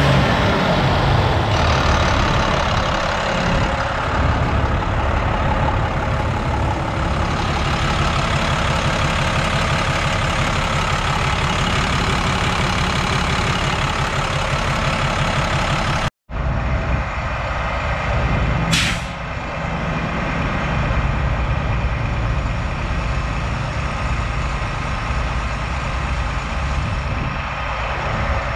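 Diesel engine of a 2006 International truck idling steadily. After a brief break, the truck keeps running with a short burst of hiss about two-thirds of the way through.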